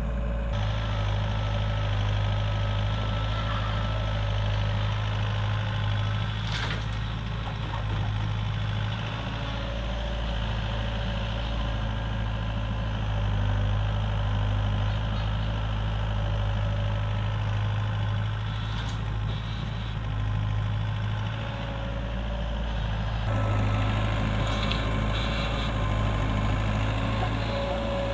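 Doosan DX55 excavator's diesel engine running steadily under work as it digs and loads soil, with a few brief sharp knocks spread through it.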